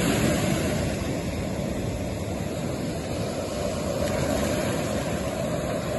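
Ocean surf washing steadily onto a cobble beach: an even rushing noise.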